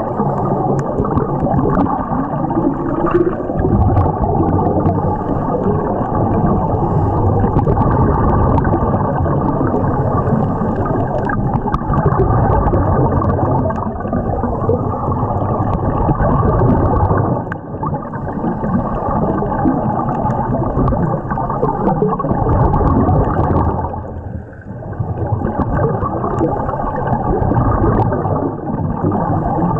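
Muffled underwater sound through a camera's waterproof housing: a steady rumbling, gurgling wash with the bubbling of scuba divers' exhaled breath from their regulators, dropping away briefly twice in the second half.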